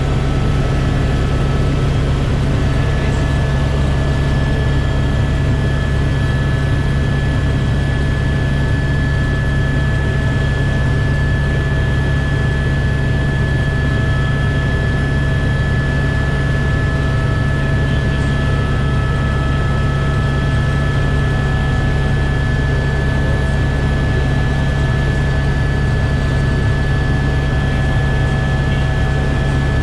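Helicopter engine and rotor noise: a loud, steady drone with a few constant whining tones above it.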